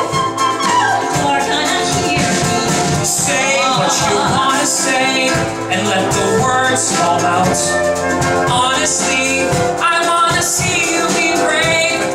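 Live band music from flute, cello, ukulele and drums, with singing in long wavering notes over it.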